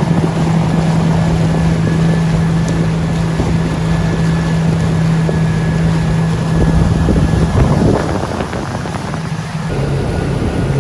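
Jet ski engine running at a steady speed over wind noise on the microphone and rushing water. About eight seconds in the engine note drops and runs lower, as the craft eases off.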